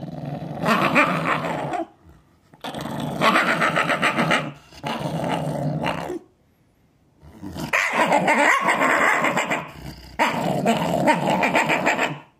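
Shiba Inu growling in five long growls, each one to two seconds, with short breaks between. It is guarding its food bowl from a stuffed toy dog pushed toward it.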